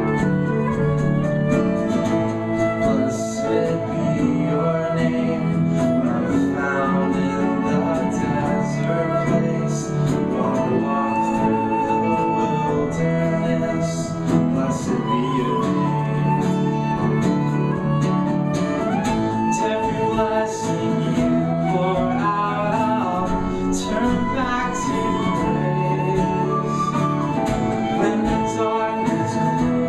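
Live worship band playing a song: flute and violin carry the melody over strummed acoustic guitar, drums with cymbals, and keyboard, with a man singing.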